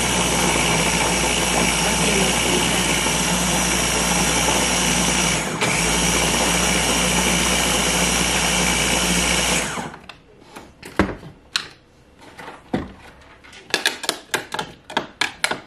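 Small electric blender running steadily under load, chopping frozen strawberries with yogurt and milk into a thick mix. It dips for a moment about five seconds in, then stops about ten seconds in. Afterwards a spoon clinks and scrapes against the plastic jar as the thick mix is stirred down.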